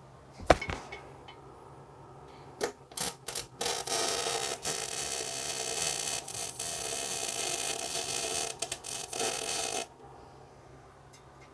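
Grinder feathering down tack welds on a steel pipe: after a knock and a few short blips, it grinds steadily for about six seconds and then stops suddenly.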